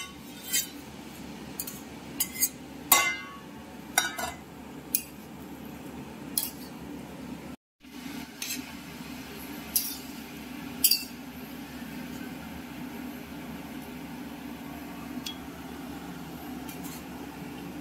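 Metal utensil clinking and scraping against a kadai as a curry is stirred: a dozen or so sharp, irregular clinks, the loudest about three seconds in, thinning out after about eleven seconds, over a steady low hum. The sound drops out completely for a moment near eight seconds in.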